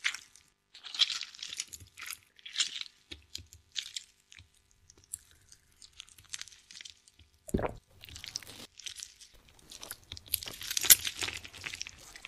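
Hands kneading and squeezing crumbly cookie dough, making intermittent crackly, crunchy rustles, with a single low thump a little past halfway.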